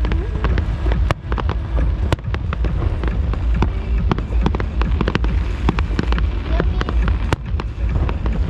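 Fireworks going off in quick succession: many sharp crackles and pops over a continuous deep rumble of bursts.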